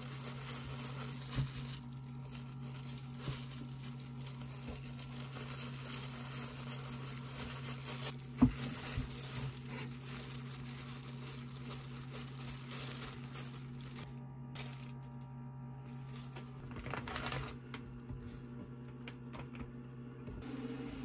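Disposable plastic gloves crinkling as hands roll and handle gimbap, with a few light knocks on the wooden board and one sharper knock about eight seconds in, the loudest sound. A steady low hum runs underneath.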